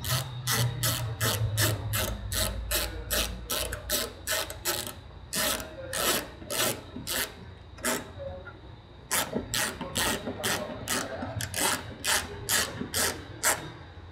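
Ratchet clicking in quick strokes, about three a second, as a headlight mounting screw is tightened. It pauses briefly just past the middle, then carries on.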